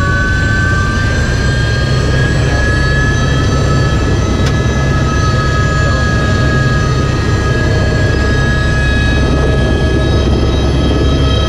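Helicopter in flight heard from inside the cabin: a steady turbine whine, whose tones rise slightly over the first few seconds and then hold, over the dense low throb of the rotor.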